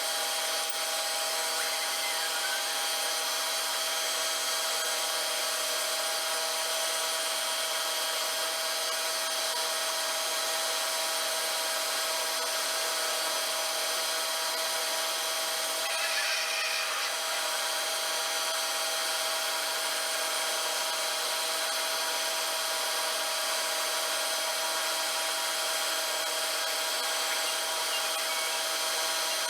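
A machine tool, most likely a metal lathe, running steadily with a constant motor hum and whine over a rubbing, cutting noise. About halfway through comes a brief, brighter scrape.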